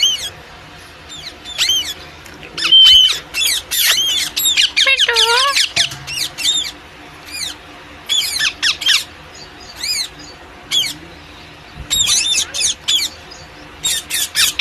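Parrot screeching: many short, sharp, high-pitched calls in quick runs, with one lower, wavering call about five seconds in.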